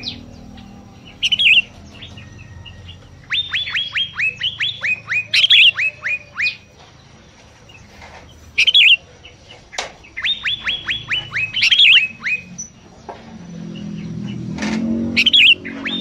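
A songbird singing in runs of quick whistled notes, each note sliding down in pitch, about three runs a few seconds apart. Short bursts of harsher chirps fall between the runs.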